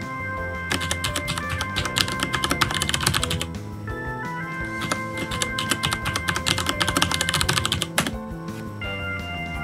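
Fast typing on a computer keyboard in two runs, with a short pause of about a second between them, as a password is keyed in and then keyed again to confirm it. Background music with steady held notes plays under it.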